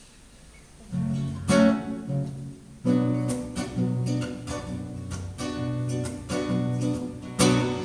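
Acoustic guitar strummed. A chord rings out about a second in, then regular rhythmic strumming starts about three seconds in: the instrumental introduction to a song.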